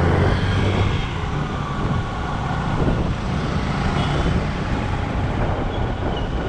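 Motorcycle engine running steadily while riding, with road and traffic noise around it.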